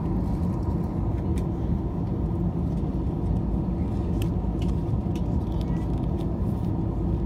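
Steady low rumble of an Airbus A319's jet engines heard inside the passenger cabin, with a faint steady tone and a few faint clicks.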